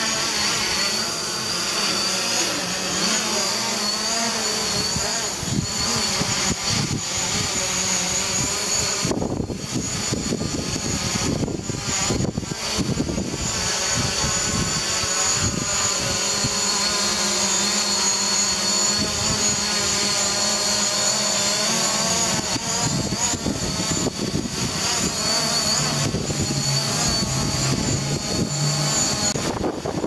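DJI Mavic Pro quadcopter's propellers whining steadily as it flies and hovers close by, with gusts of wind buffeting the microphone, strongest about a third of the way in.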